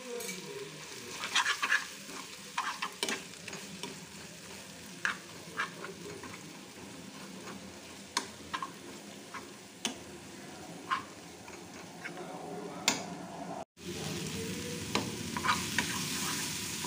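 Chopped onion, tomato and garlic paste sizzling in oil in a frying pan, with a metal spatula scraping and clicking against the pan as it is stirred. The sound cuts out briefly near the end, then the sizzle resumes a little louder.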